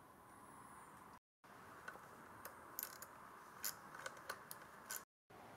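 Faint, scattered metallic clicks and small knocks of a hand tool working the terminal bolts as wires are fitted to a motorcycle battery.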